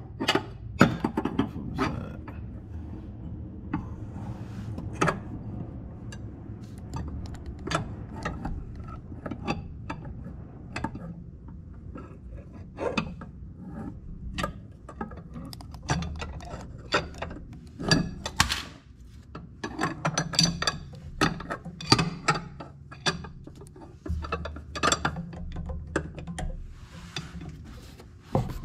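Snap-on ratchet wrench clicking in short, irregular strokes as the driveshaft flange bolts are run down and torqued.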